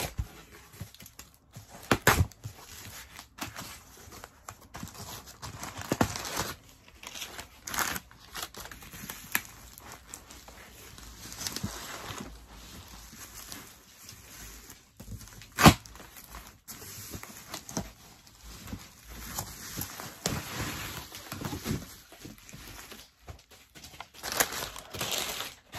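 Cardboard shipping box being opened: packing tape slit and torn, cardboard flaps scraping and rasping, with irregular knocks and one sharp knock about two-thirds of the way through. Near the end, bubble wrap rustling and crinkling as it is handled.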